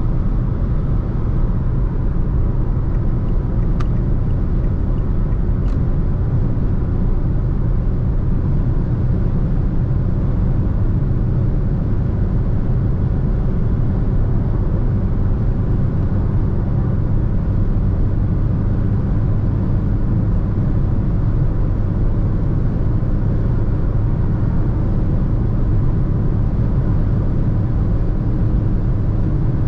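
Fiat Egea's 1.6 turbodiesel four-cylinder and its tyres at motorway cruising speed: a steady, even, low rumble that does not change. Two faint clicks sound about four and six seconds in.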